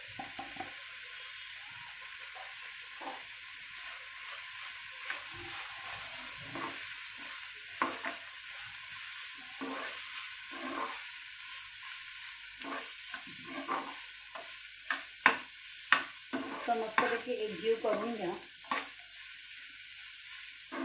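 Chopped onions sizzling in hot oil in a frying pan while a spatula stirs them, scraping and tapping against the pan. The scrapes come more often in the second half.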